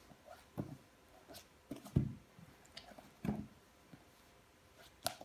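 Soft thumps and taps of a notebook being flicked and slapped down by hand on carpet during hand-board kickflip attempts: about five separate knocks, the loudest about two seconds in.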